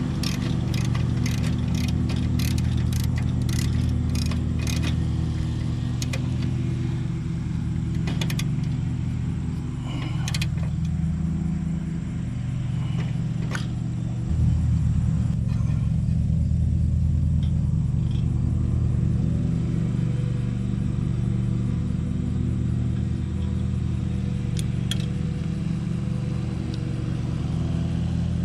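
A steady low engine-like drone, stepping up in level about halfway through, with a quick run of sharp metallic clicks and clinks over the first few seconds and a few more later.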